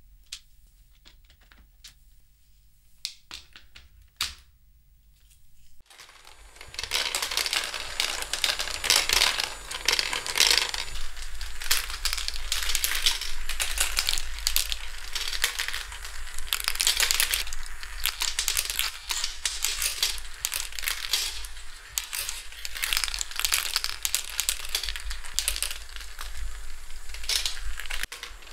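Marbles clattering and rolling down a motorized plastic marble run's tracks and tubes. There are only a few sparse clicks at first, then about six seconds in a dense, continuous rattle of many small clicks begins.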